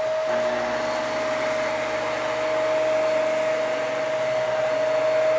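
Hoover Max Life Pro Pet Swivel upright vacuum running steadily over carpet, its motor giving a high, even whine over a rushing hiss.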